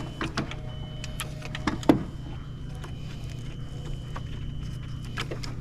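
A loose battery cable terminal being handled and wiggled on its post, giving a few light metallic clicks and knocks, the loudest about two seconds in. Under it run a steady low hum and a faint high whine.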